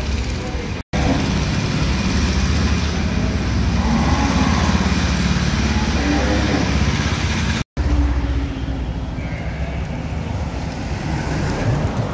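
Steady road traffic and motor-vehicle engine noise, heavy in the low end. It cuts out abruptly and briefly twice, about a second in and again near the middle.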